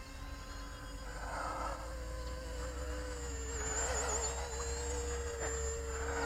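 Electric motors and propellers of an E-flite Convergence VTOL model plane in forward flight: a steady whine that wavers slightly in pitch about four seconds in, over a low wind rumble.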